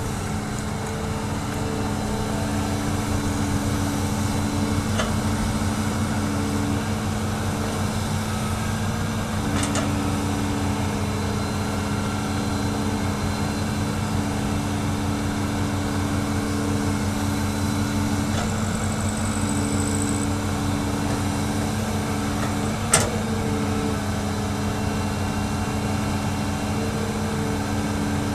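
Hitachi hydraulic excavator's diesel engine running steadily while it works, its tones dropping in and out as the load changes, with one sharp knock about 23 seconds in.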